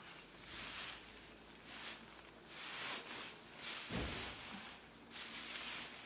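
Dry hay rustling in repeated swishes as it is grabbed by hand and stuffed into a mesh sack, with a dull thump about four seconds in.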